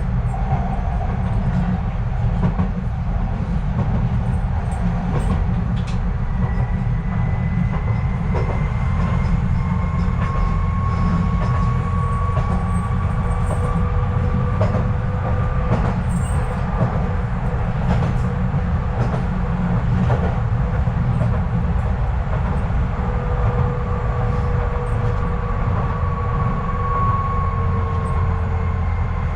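Docklands Light Railway train running between stations, heard from inside the car: a steady low rumble with a motor whine that rises gently and later falls away, and scattered clicks of the wheels over rail joints.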